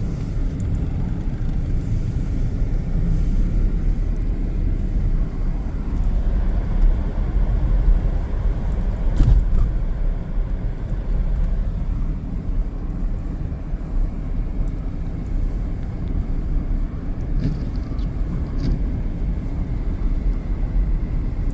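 Car driving on a snowy road: a steady low rumble of engine and tyre noise, with a light knock about nine seconds in.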